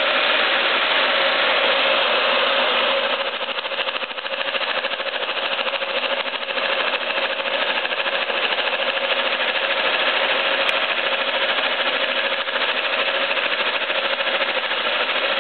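Stanko 6T10 milling machine running at 800 rpm, its Sandvik face mill cutting across an aluminium motorcycle cylinder head under coolant. It is a steady machining noise with a constant hum, dipping briefly about three to four seconds in.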